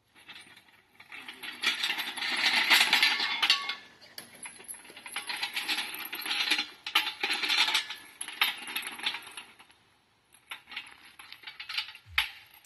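Steel Pittsburgh engine hoist rattling and clanking as it is pushed on its casters over gravel, in two long spells of dense clattering with scattered ticks near the end.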